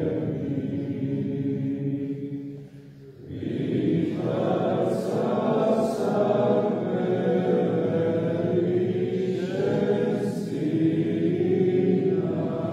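A group of voices chanting in church, holding long sustained notes in several parts at once. The singing pauses briefly about three seconds in, then the next phrase begins.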